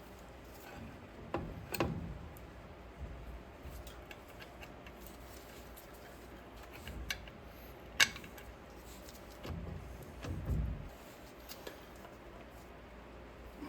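Scattered metal clicks, clinks and knocks from brake shoes and their hardware being handled and fitted on a vehicle axle. There is a sharp clack about eight seconds in and a couple of duller thumps.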